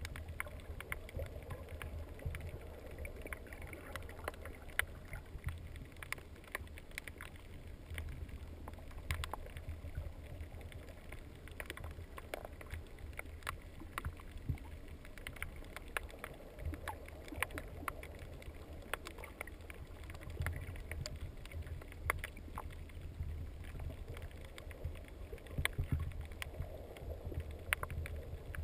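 Muffled underwater sound through a waterproof camera housing: a steady low rumble of moving water with scattered sharp clicks and crackles.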